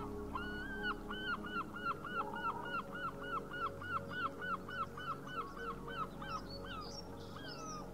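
A bird calling in a fast series of about twenty short rising-and-falling notes, about three a second, stopping shortly before the end. Background music with sustained notes runs underneath.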